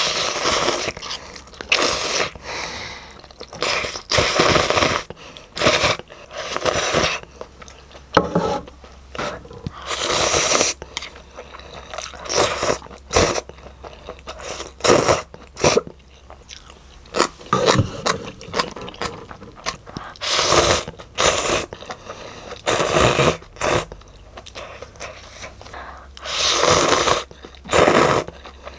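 Close-miked eating of hot and sour glass-noodle soup: repeated slurps of chewy glass noodles and broth from a bowl, with chewing between them.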